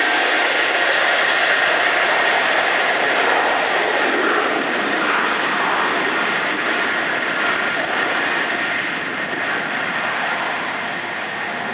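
Four Pratt & Whitney JT9D turbofans of a Boeing 747-200 freighter running at high power: a loud jet rush with a steady whine in it, slowly fading.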